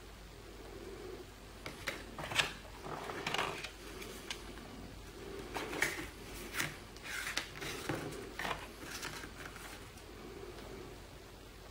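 Game cards being handled and spread out on a table: a string of short card slides, flicks and taps from about two seconds in until near the end.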